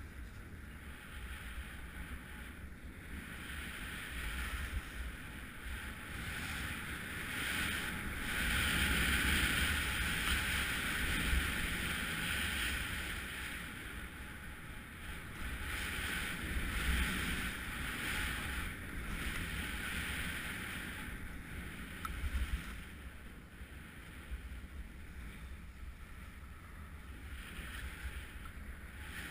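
Skis hissing and scraping over tracked, packed snow on a downhill run, with wind rumbling on the microphone. The hiss swells and eases in stretches, loudest about a third of the way through.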